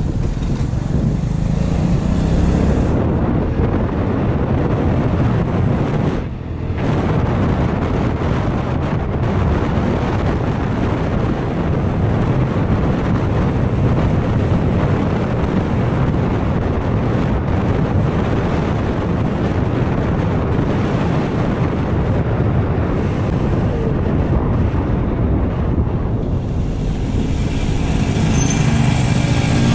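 Riding noise of a small motor scooter: a steady rush of wind and road noise with the engine running beneath it. Near the end, as the scooter slows, the rush eases and the engine's note comes through more clearly.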